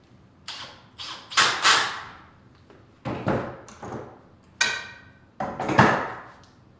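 A run of sharp wooden knocks and clunks, in loose pairs about a second apart; one knock near the middle rings briefly.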